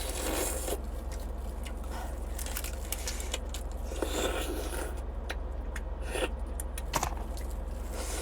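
Cooked crayfish being eaten by hand: shells cracked and peeled in scattered clicks and crunches, with chewing in between. A steady low hum runs underneath.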